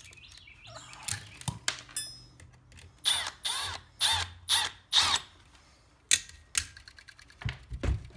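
Small metal parts clicking and clinking as the screws supplied with a GFCI outlet are removed and handled. A run of about six ringing metallic ticks, roughly two a second, comes a little past the middle, with a few sharper clicks near the end.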